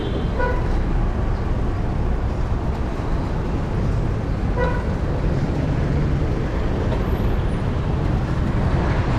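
Steady rush of road traffic and wind noise heard from a moving bicycle, with a short vehicle horn beep just at the start and another about four and a half seconds in.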